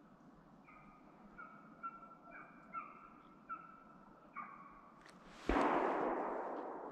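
Hunting hound baying on a track: a run of short yelping bays, about two a second, which stops just before a single gunshot a little over halfway in, whose report rolls away slowly.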